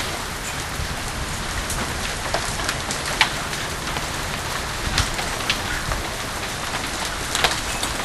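A hailstorm's rain and hail falling in a steady hiss, with a few sharp hits of hailstones striking about three, five and seven and a half seconds in.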